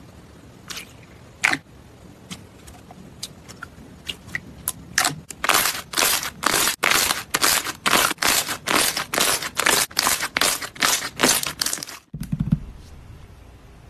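Clear slime being pressed and squeezed by hand, giving sharp wet clicks and pops of trapped air. The clicks are sparse at first, then come thick and fast, about three a second, from around five seconds in, and stop abruptly about twelve seconds in.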